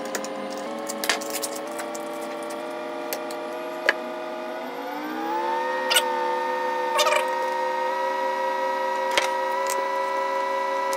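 A steady tone of several pitches sounding together, sliding up in pitch about five seconds in and then holding. Over it come a few short taps and scrapes of a knife on a jar and bread as chocolate spread is spread on sandwich bread.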